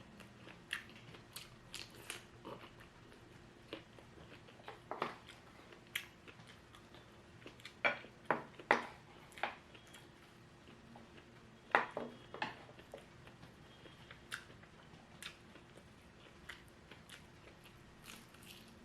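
Close-up mouth sounds of eating shrimp and crisp fried lumpia: irregular crunching bites and wet chewing. The loudest crunches come in a quick cluster about eight seconds in and again near twelve seconds.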